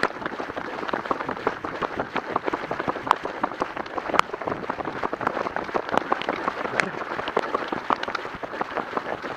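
Dense, irregular crackling and tapping right at the microphone of a camera carried by a runner on the move, many small ticks a second with no steady rhythm.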